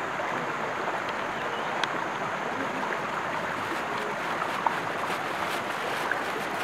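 Shallow stream water running steadily over rocks, with a couple of small clicks.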